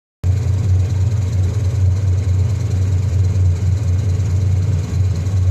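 Lapidary trim saw running with a steady low motor hum, cutting in abruptly just after the start.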